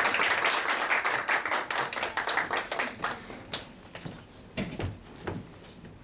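A small audience applauding, loud at first and thinning after about three seconds into a few scattered claps, with a few footsteps on the wooden stage floor near the end.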